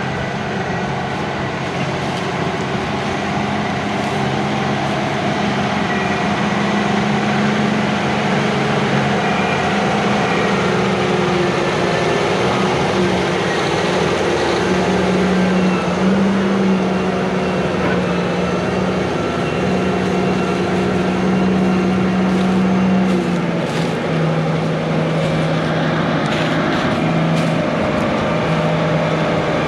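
Heavy diesel farm machinery running steadily at working speed, its engine note dipping slightly and recovering a few times.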